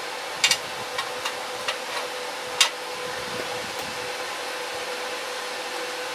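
Light metal clicks and taps as the RCBS 5-0-2 powder scale's beam is handled and set down on an aluminum plate, the loudest about two and a half seconds in. A steady background hum with one held tone runs underneath.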